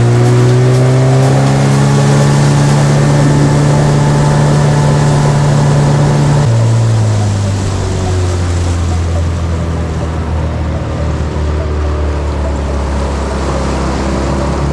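Outboard motorboat engine running under way, its note rising at the start and holding steady, then dropping to a lower pitch about six and a half seconds in as the throttle eases off.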